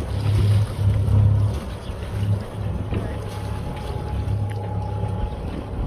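Sailing yacht's inboard engine running at low revs as the boat motors slowly, a steady low hum that is strongest in the first second and a half, with wind buffeting the microphone.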